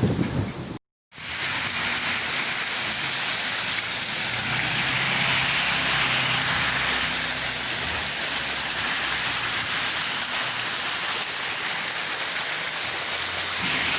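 Heavy storm rain pouring down, a steady loud hiss.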